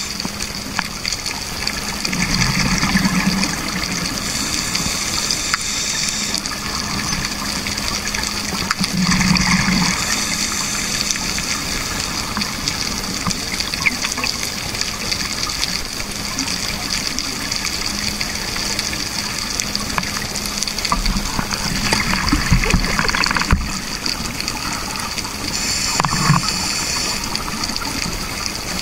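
Scuba breathing heard underwater: exhaled bubbles gurgle out of a regulator in bursts every several seconds, over a steady underwater hiss.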